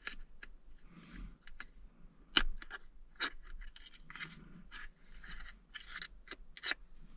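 Can opener of a Gerber Suspension NXT multi-tool cutting around the lid of a sardine tin whose pull tab broke off. It makes repeated short metal scrapes and clicks, the sharpest click about two and a half seconds in.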